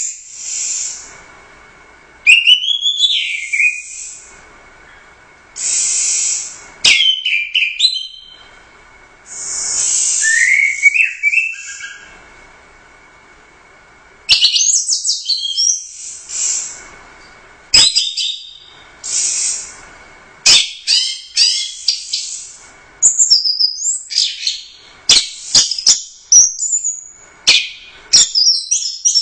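Orange-headed thrush singing loud, varied phrases of whistles, rising and falling sweeps, hissy notes and rapid chattering, with short pauses between them; in the second half the phrases come in quicker succession.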